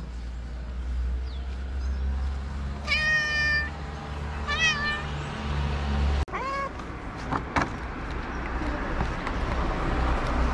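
Tabby cat meowing three times: a longer meow about three seconds in, a shorter one a second and a half later, and a brief one at about six and a half seconds.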